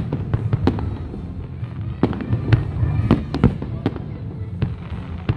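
Fireworks display: shells bursting in a rapid, irregular series of sharp bangs, more than a dozen in a few seconds, over a steady low rumble.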